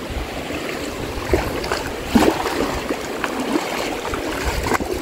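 Shallow stream running, with a few short splashes from footsteps wading through the water.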